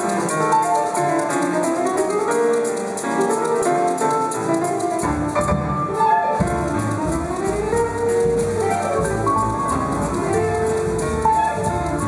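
Live jazz group playing, led by grand piano running up and down the keyboard; low notes join in about five seconds in.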